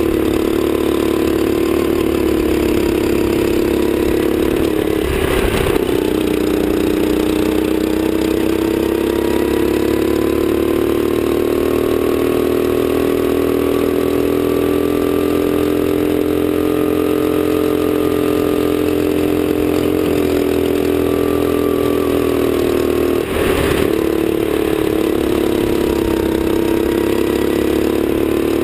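Sodi kart's engine running under the driver's seat, its pitch falling and rising as it slows for corners and accelerates out of them. A brief rush of noise cuts across it twice, about five seconds in and near the end.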